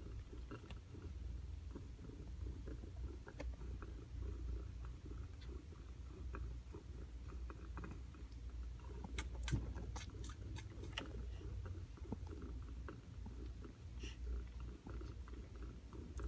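Cats grooming at close range: a low rumbling purr with soft, wet licking and smacking sounds, and a few sharper clicks about nine to eleven seconds in.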